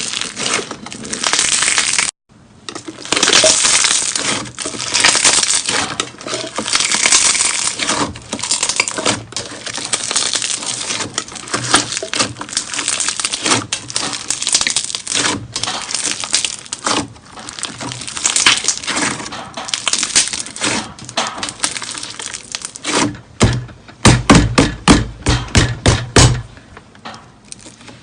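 Slime being squished and pressed by hand: a dense, crackling crunch full of small pops and clicks, which stops briefly about two seconds in. Near the end comes a quick run of deeper thumps.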